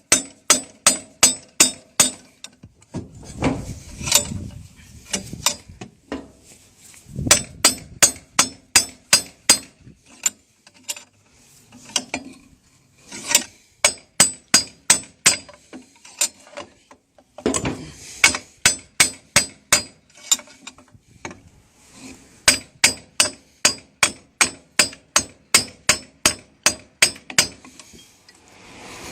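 Rapid light hammer taps, metal on metal, about five a second in runs of several seconds with short pauses between, easing a universal joint's needle-bearing cup into the propeller-shaft yoke a little at a time.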